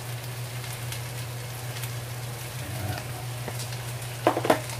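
Shrimp frying in oil in a wok: a steady crackling sizzle over a low hum, with two sharp knocks near the end.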